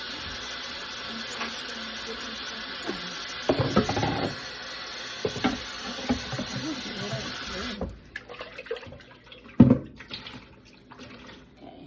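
Kitchen tap running into the sink as fruit is rinsed, with splashing and clattering in the water. The water shuts off suddenly about eight seconds in, followed by a few knocks, the loudest a sharp one shortly after.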